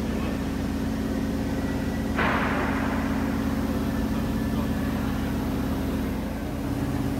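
A large colliery winding engine turning its drum with a steady low mechanical hum. About two seconds in, a sudden burst of hiss starts and fades away over about a second.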